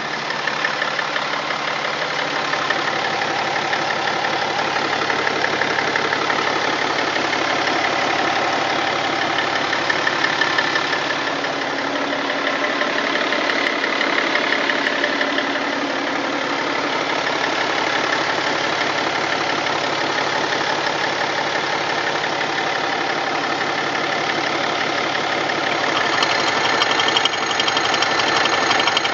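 BMW M57 straight-six turbodiesel running steadily, apparently at idle, with an extraneous noise in its running whose cause the owner does not know.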